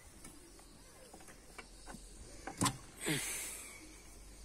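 An EGR valve being worked loose by hand and lifted out of an engine bay: a few light clicks, a sharp metallic knock about two and a half seconds in, then a short scrape that fades.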